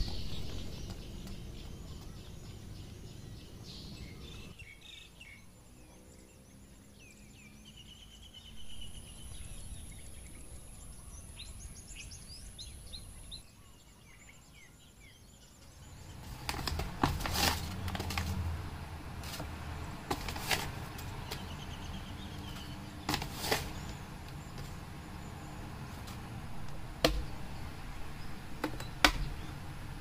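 Birds chirping over a faint outdoor background. About halfway through this gives way to a kitchen: a low hum with sharp clicks and knocks, from coffee-making things being handled and set down on a countertop.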